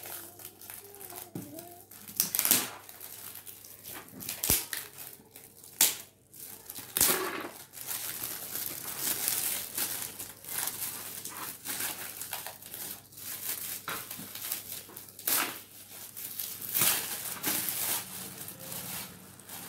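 Shiny plastic gift wrapping crinkling and rustling irregularly as it is pulled open and off a boxed toy by hand, with louder crackles now and then.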